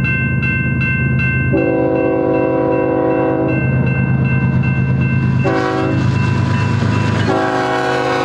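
BNSF ES44C4 diesel locomotive sounding its horn for a grade crossing: a long blast, a short one, and another long one starting near the end. This is the standard crossing warning pattern. Under it the engine drones, and the crossing signal's bell rings in quick even strokes, most plainly in the first second or so.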